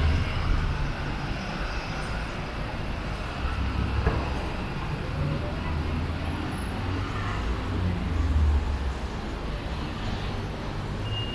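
City street traffic: vehicle engines passing and idling make a low rumble that rises and falls. A short high beep comes right at the end.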